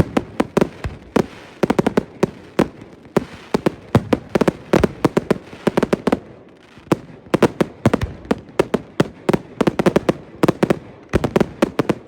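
Fireworks going off in a dense, irregular string of sharp bangs and crackles, several a second, with a brief lull about halfway through.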